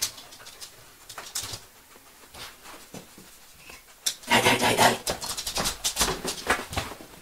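Bed bug detection dog searching at an open wardrobe drawer: faint scattered rustles, then about four seconds in a dense run of quick sniffs and scuffs lasting around three seconds.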